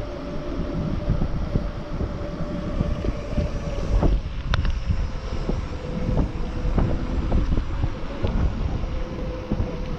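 Wind buffeting the microphone while riding an e-bike along a paved trail, a gusting low rumble with scattered light knocks and a steady hum under it.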